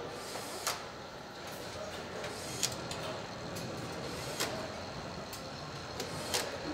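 Assembly-line factory noise: a steady hum of machinery with sharp metallic clicks about every two seconds, four in all.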